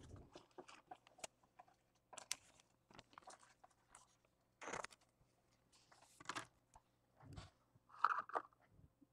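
Football trading cards being handled and moved by hand: soft, irregular rustling, scraping and light clicking of card stock, loudest near the end.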